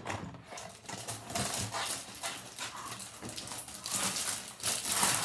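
Plastic packaging crinkling and rustling as a foam mirror in its card-backed wrapper is handled, in many short irregular crackles.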